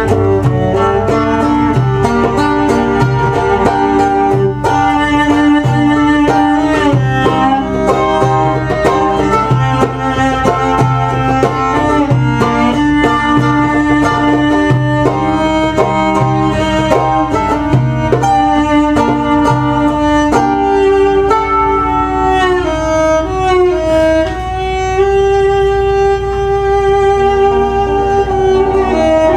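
Live acoustic band music: a round-backed plucked lute playing quick notes over a steady hand-drum beat, with a bowed cello. About twenty seconds in, the drum drops out and long held bowed notes take over.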